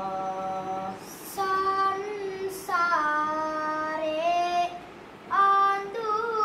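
A boy novice Buddhist monk singing kavi bana, Sinhala Buddhist verse, solo and unaccompanied: long held notes that bend from pitch to pitch, in phrases broken by quick breaths.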